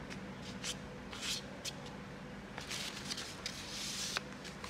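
A blue non-woven cloth holding black toner powder being crumpled and shaken in the hands: a string of short, irregular rustles.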